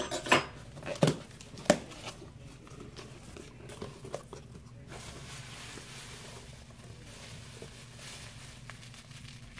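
A cardboard shipping box being opened by hand: a few sharp knocks in the first two seconds, then quieter rustling and scraping of the cardboard flaps.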